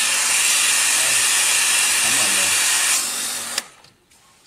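Water jetting from a spray nozzle on a hose fed by an electric water pump: a loud, steady hiss with a faint pump hum underneath. It cuts off sharply about three and a half seconds in, as the nozzle is shut.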